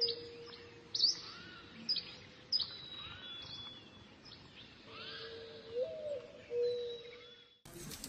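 Forest birdsong ambience: small birds giving short, sharp chirps about once a second over a faint, steady low tone. It cuts off suddenly near the end.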